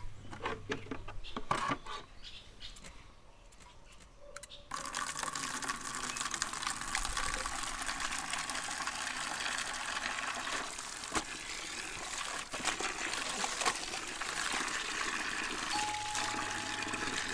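Water running steadily from an outdoor tap, starting suddenly about five seconds in, with a few soft knocks before it.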